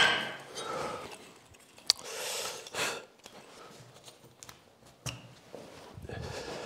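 A sharp metallic knock as an aluminium scaffold tower is grabbed and shifted, followed by scraping and handling noises and a few small clicks.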